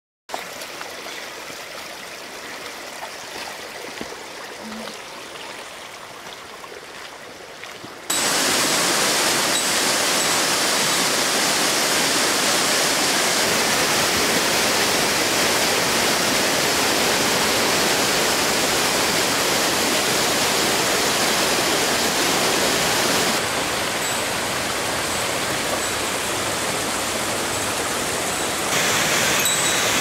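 Quiet outdoor ambience for the first several seconds, then, about eight seconds in, the loud steady rush of a tall waterfall pouring down a rock face onto boulders. The rush drops a little in level a little after twenty seconds and comes back up near the end.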